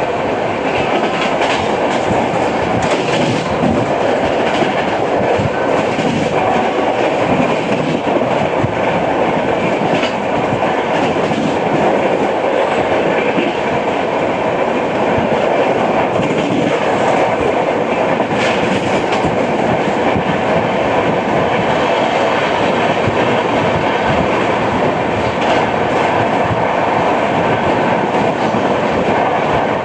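Express passenger train (12810 Howrah–CSMT Mail) running at speed, with a steady loud rumble of wheels on rail and the clickety-clack of wheels over joints. The wheel knocking is what the uploader calls flat-wheel sound, a wheel worn flat on one spot.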